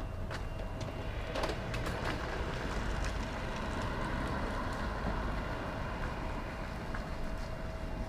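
Steady low rumble of outdoor background noise with a constant faint hum, and a few light clicks about a second and a half to two seconds in.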